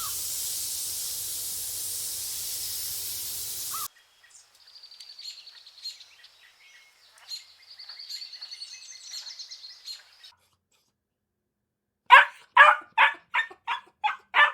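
A steady hiss for about four seconds, then a small bird's high chirps and trills, and after a short silence a dog barking rapidly, about three barks a second, the loudest sound.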